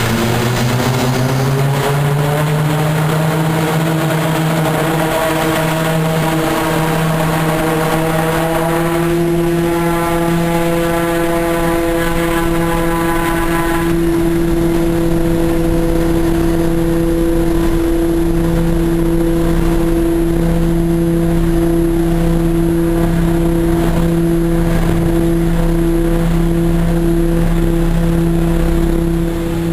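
Short Skyvan's twin turboprop engines and propellers on the takeoff run, heard from the cockpit. The drone rises in pitch over the first nine seconds or so as power comes up and the aircraft accelerates, then holds at a steady pitch into the climb.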